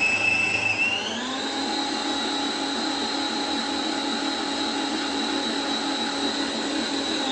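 Electric mixer motor whining steadily as it beats cake batter; about a second in its pitch steps up as it is switched to a higher speed.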